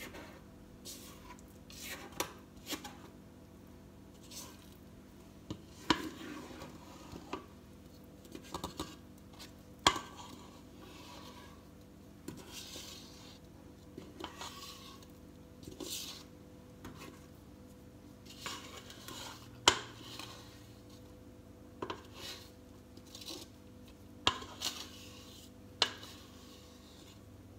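Brownie batter being scraped out of a stainless steel mixing bowl into a metal baking pan with a spatula: irregular scrapes and sharp clinks of utensil and bowl against metal, a dozen or more scattered through the stretch.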